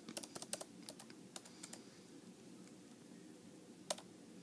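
Typing on a laptop keyboard: a quick run of light keystrokes over the first couple of seconds, then a pause and a single tap near the end.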